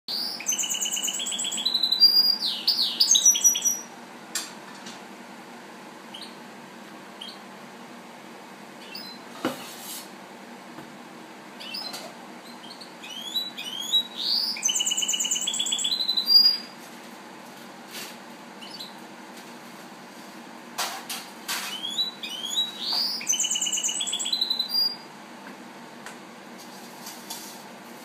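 Caged songbird singing three phrases of high, rapid, trilling song, each a few seconds long: one at the start, one near the middle and one about three-quarters through, with quiet pauses between.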